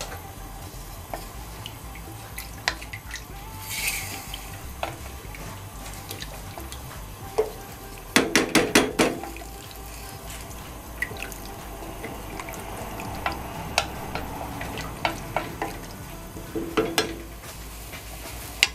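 Pork simmering in broth in a stainless steel saucepan, with a wooden spatula stirring it and knocking against the pot in a quick run of clacks about halfway through and a few more near the end. A short hiss comes a few seconds in.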